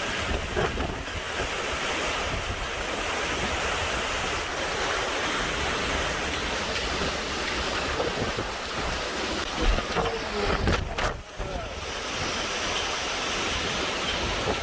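Hurricane-force wind blowing hard and steadily, a dense rushing noise buffeting the microphone, with a brief dip about eleven seconds in.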